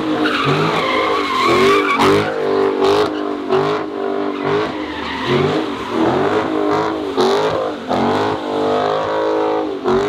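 Car tyres squealing and engines revving as cars spin donuts, with a rap beat underneath.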